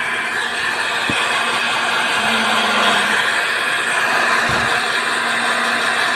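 Hair dryer running steadily, a constant blowing rush.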